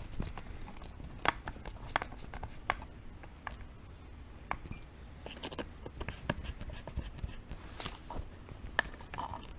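Irregular small clicks and taps from handling hard parts and screws while fitting parts to a radio-controlled truck, with a few sharper clicks about a second in, at two seconds and near the end.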